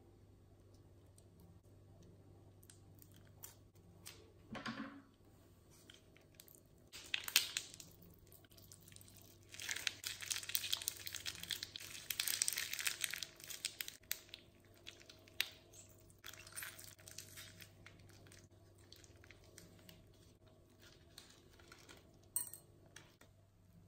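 Thin plastic bag crinkling and rustling as hands squeeze glitter slime out of it, in bursts with one long dense stretch of crackling about ten seconds in. A few sharp snips of scissors cutting the bag near the start.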